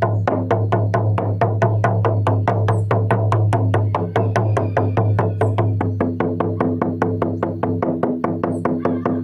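A drum beaten in a steady, fast, even rhythm, about four to five strokes a second, over a continuous low drone.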